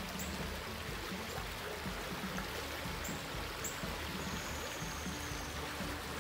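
Small woodland creek rushing steadily over rocks, a constant splashing of running water. A few faint short high chirps sound over it.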